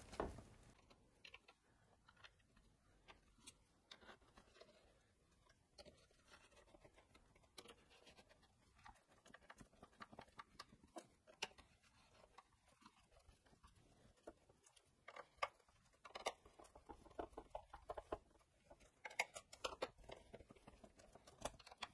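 Faint, scattered clicks and light knocks of plastic and metal as a chainsaw's recoil starter housing is fitted back on by hand, a little busier in the last few seconds.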